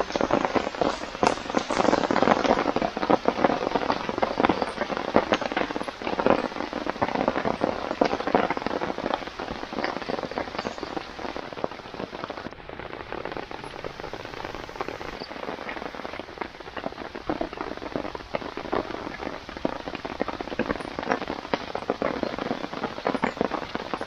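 Wood campfire crackling and popping with many small sharp snaps, over the steady hiss of falling rain.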